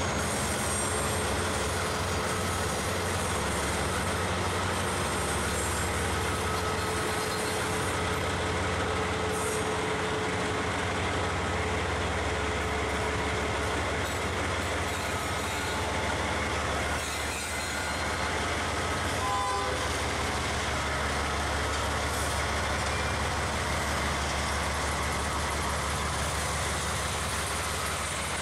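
Diesel-electric freight locomotives, among them a 442 class and a CFCLA EL class, passing slowly at walking pace: a steady low diesel engine drone with the rumble of wheels on the rails.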